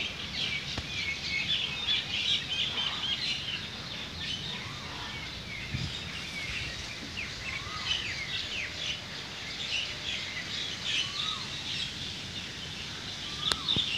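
A crowd of small birds chirping and twittering at once, a dense chorus of short high calls with a few lower calls mixed in. A sharp click comes near the end.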